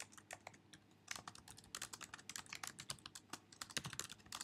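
Faint computer keyboard typing: a few separate keystrokes at first, then a quick, steady run of keys from about a second in.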